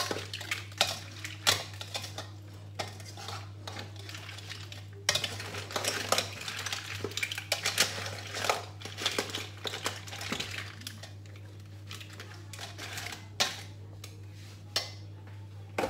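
Metal tongs clinking, knocking and scraping against a stainless steel pot as flower crabs are moved around in it: an irregular run of sharp clinks and knocks, with a steady low hum underneath.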